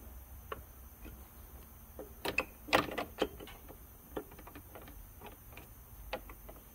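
Irregular metallic clicks and knocks as a replacement car A/C compressor is manoeuvred against its mounting bracket to get it onto the stud, with a cluster of louder knocks about two to three seconds in.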